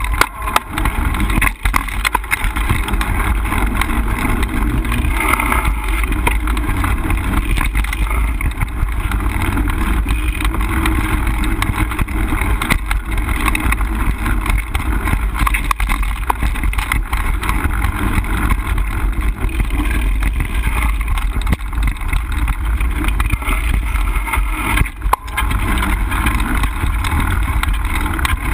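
Mountain bike rolling fast over a dirt singletrack trail, heard through the rider's action camera: steady wind rush and rumble on the microphone, with frequent small knocks and rattles as the bike and camera jolt over bumps.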